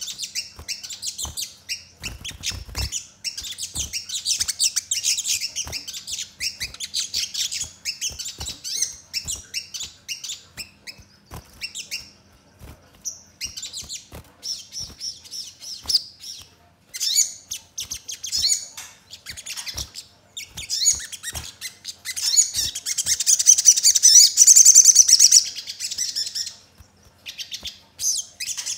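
Male olive-backed sunbird singing a rapid, high-pitched chattering song of sharp chirps, with short pauses. It grows loudest and densest about three-quarters of the way through. The song is laced with house-sparrow-like chirps. Scattered light clicks are heard as it hops about the cage.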